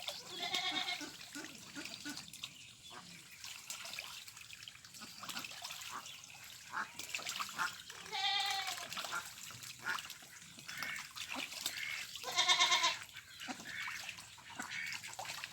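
Ducks quacking, with three louder drawn-out quacks: near the start, about eight seconds in, and about twelve and a half seconds in. Between them are softer calls and light splashing in the water.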